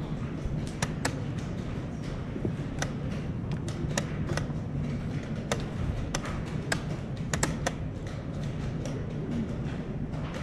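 Chess pieces set down on wooden boards and chess clock buttons pressed in blitz games: sharp, irregular clicks, one or two a second, over a steady low background hum.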